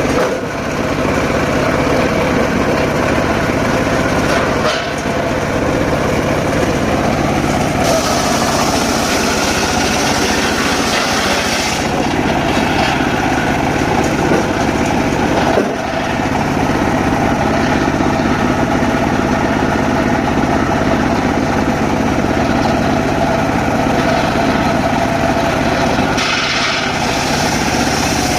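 Engine-driven mobile circular sawmill running steadily while sawing teak logs, with the motor and spinning blade giving a continuous mechanical drone. It dips briefly a few times, about 5 and 16 seconds in.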